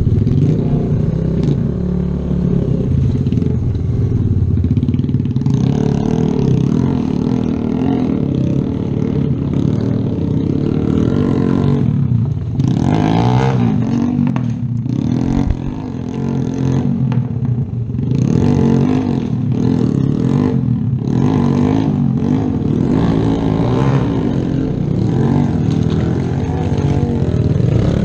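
Kawasaki Z125's 125cc single-cylinder engine running at low speed through a rocky creek crossing, its pitch rising and falling with short throttle blips.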